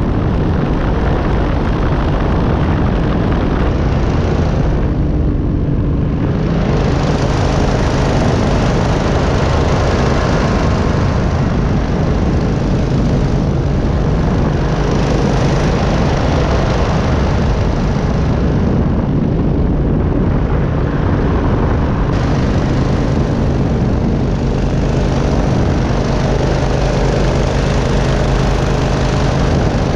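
Buckeye Dragonfly powered parachute's engine and pusher propeller running steadily in cruise flight, heard from the pilot's seat.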